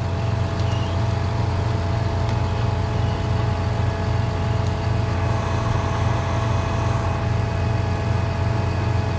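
Peterbilt 337 tow truck's diesel engine running steadily at raised idle, with a steady whine over it, while its winch drags a wrecked car up out of a flooded ditch.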